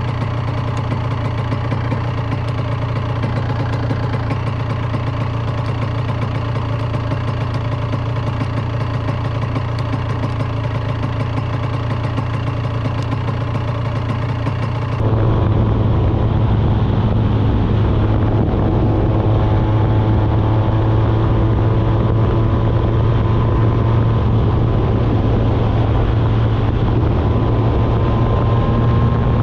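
Honda NSR 125's single-cylinder two-stroke engine idling steadily, then, from about halfway, running louder under way with its pitch slowly rising as the bike gathers speed.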